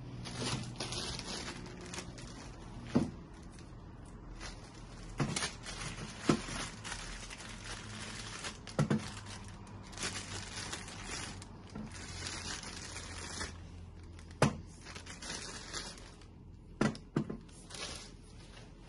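Clear plastic bags crinkling and tearing as small parts are unwrapped by hand, with several sharp knocks of hard parts set on or against the waffle maker's stainless steel body, two of them in quick succession near the end.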